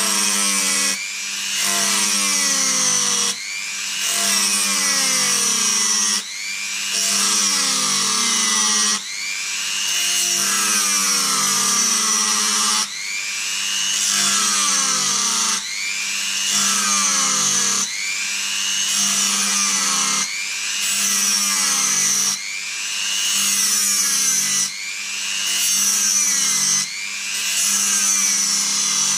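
Dremel rotary tool grinding the end of a steel hex socket in a series of passes. With each pass its whine sags and recovers as the bit is pressed against the metal and eased off, about every two to three seconds.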